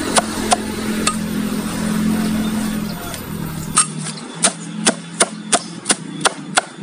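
Machete chopping a pile of fresh Asystasia weed stems and leaves: a few sharp chops in the first second, then a steady run of about three chops a second from about four seconds in.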